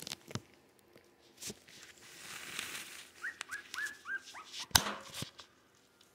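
Three-week-old Jack Russell terrier mix puppy whimpering: a quick run of short, high squeaks about halfway in. Scattered clicks and knocks around it, the loudest a sharp knock shortly after the squeaks.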